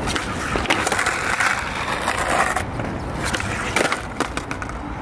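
Skateboard wheels rolling over smooth concrete for a couple of seconds, then a few sharp clacks of the board hitting the ground near the end during a flip-trick attempt.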